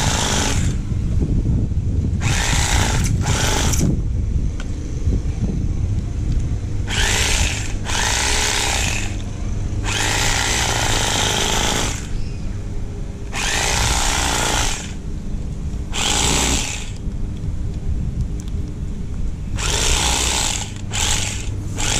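Electric fillet knife running with a steady motor hum, its reciprocating blades cutting along an alligator gar's scaly hide. The cutting noise swells into about ten harsh spells, each half a second to two seconds long, as the blades bite through.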